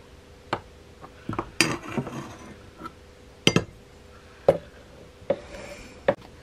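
A metal measuring cup knocking and clinking against a glass jar and a plastic food processor bowl while flour is scooped and tipped in: about seven separate sharp clinks spread irregularly, with a faint steady hum underneath.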